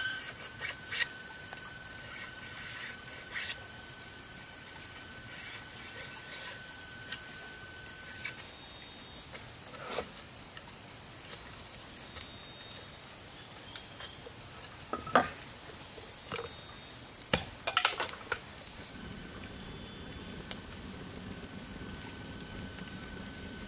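Machete blade scraping and knocking on a thin bamboo strip being shaved into a skewer: scattered short scrapes and clicks, the sharpest about two-thirds of the way in, over steady high chirring of forest insects. A wood fire burns with a low rushing in the last few seconds.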